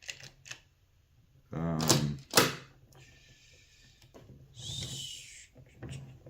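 Plastic magnetic building tiles clicking and clacking as they are handled and snapped together, with a sharp loud click about two and a half seconds in.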